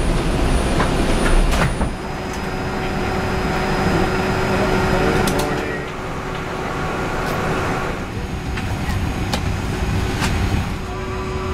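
Steady hum of a parked Boeing 757-200's cabin and jet bridge: air and machinery noise with a steady low tone, changing abruptly a few times, with a few light clicks.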